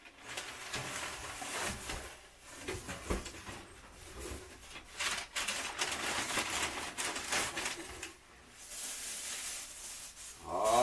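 Packing paper and a cardboard box rustling and crinkling as parts are lifted out, with scattered light knocks and scrapes.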